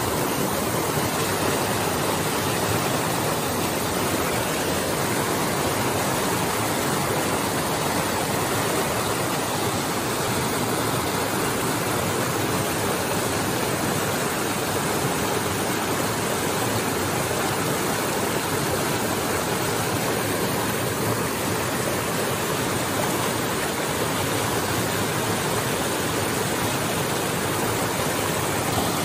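Shallow rocky creek rushing steadily over rocks and small cascades.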